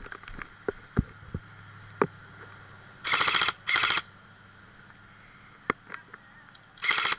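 Airsoft electric rifle firing three short full-auto bursts of rapid clicking shots, two close together about three seconds in and one near the end. A few scattered clicks and knocks come before them.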